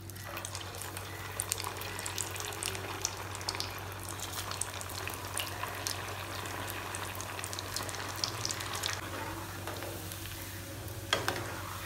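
Sabudana vada (tapioca-pearl patties) deep-frying in hot oil in a steel pan: a steady sizzle full of small crackles and pops, easing somewhat after about nine seconds. A sharp knock near the end.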